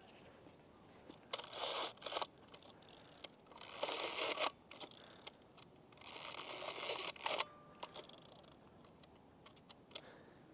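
Mamiya RZ67 Pro II medium format camera being wound on: three ratcheting strokes of about a second each, with a few light mechanical clicks between them, as the film is advanced in the newly attached film back.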